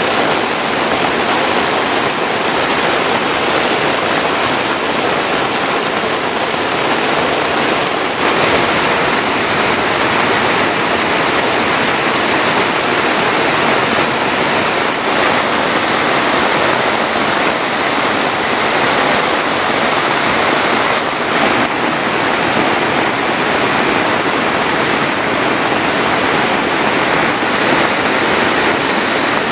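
Heavy rain pouring down in a steady, dense hiss, with water dripping and streaming off the wet wooden poles of a hut.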